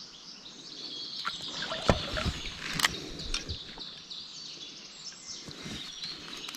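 Hooked trout splashing and thrashing in the river as it is played on a fly line, with a few sharp splashes about two and three seconds in. Birds chirp throughout.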